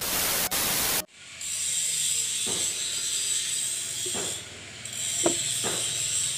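About a second of loud TV-static noise from a colour-bar transition effect, cutting off suddenly. Then a steady high hiss with about four light clicks as a 6-inch subwoofer driver with a metal trim ring is handled and seated in its cabinet.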